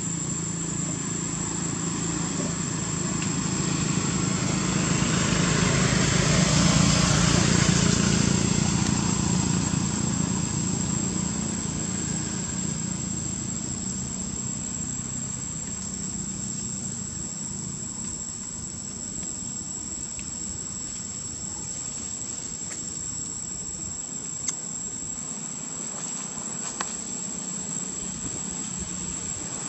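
A steady, high-pitched insect drone, with a passing vehicle's engine noise that swells to a peak about seven seconds in and then fades away.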